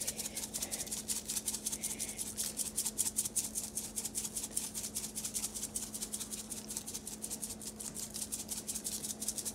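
Dry rib rub shaken from a shaker onto raw ribs: a quick, steady rattle of seasoning granules, with a faint steady hum underneath.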